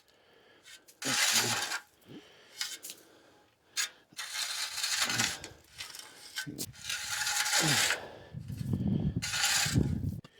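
A series of scraping, grating strokes from a hand tool working wet dirt and gravel as ground is levelled, each stroke lasting about a second.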